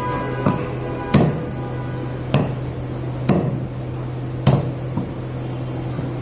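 Large fish-cutting knife chopping through rohu fish and striking a wooden chopping block: about six sharp knocks, irregularly spaced roughly a second apart, over a steady low hum.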